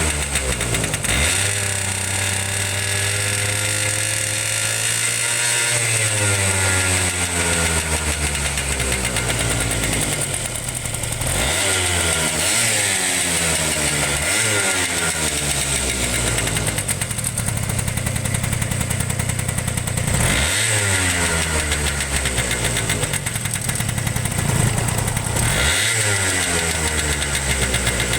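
Honda Live Dio ZX (AF35) 50cc two-stroke scooter engine idling and revved up several times, the pitch rising and falling back to idle between throttle blips. It runs smoothly with no abnormal noise, a sign of the engine being in excellent condition.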